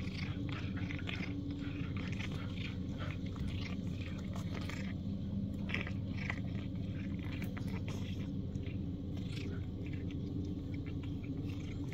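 Cat chewing and biting into a chick it is eating: irregular crunching and clicking bites, close to the microphone.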